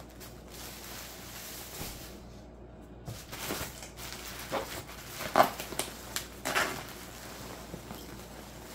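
Hands rummaging through foam packing peanuts and plastic bubble wrap in a cardboard box: irregular rustling and crinkling, with two louder crinkles a little past the middle.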